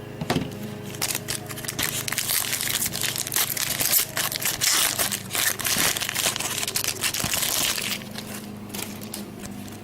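A foil trading-card pack wrapper being torn open and crinkled by hand: a dense crackle of rustling and small clicks from about a second in until about eight seconds in.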